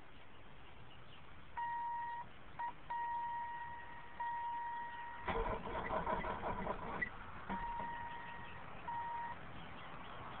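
The BMW's electronic warning beep sounds as a steady high tone, cutting in and out as the wires under the steering column are worked. In the middle, the tone gives way to a couple of seconds of rattling and clicking from the wiring and steering column.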